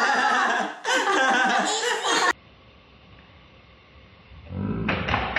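Children laughing excitedly. It cuts off abruptly a little over two seconds in, and after a quiet stretch laughing voices start again near the end.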